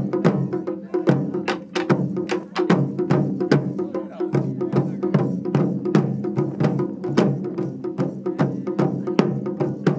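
Japanese taiko ensemble: several drummers striking barrel-shaped chū-daiko drums with wooden bachi sticks in a fast, driving rhythm of several strokes a second, each stroke ringing into the next.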